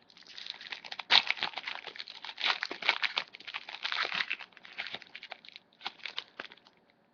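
Trading-card pack wrapper being crinkled and torn open by hand: a run of irregular crackling and rustling that stops shortly before the end.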